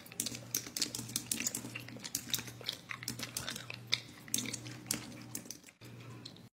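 Fingernail biting: quick, irregular little clicks and crunches at the teeth, over a low steady hum.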